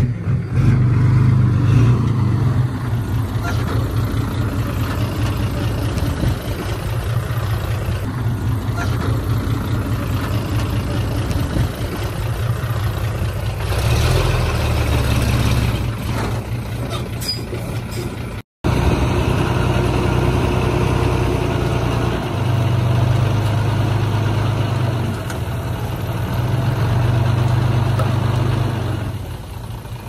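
Heavy diesel engines of earthmoving machinery running with a steady low drone that swells and eases now and then. The sound cuts out for a moment a little past halfway.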